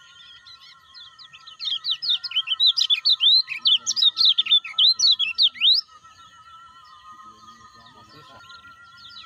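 Lemon-bellied white-eye (kecial kuning) singing a fast, dense run of high chirps and sweeping notes for about four seconds, starting about a second and a half in, then only scattered faint chirps. Faint steady tones hum underneath.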